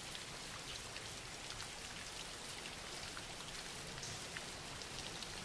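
Soft, steady rain with small drops ticking here and there, a rain background ambience.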